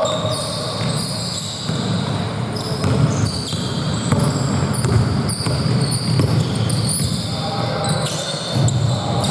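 Basketball game in play on an indoor court: many short, high sneaker squeaks on the floor and the ball bouncing, with players' voices.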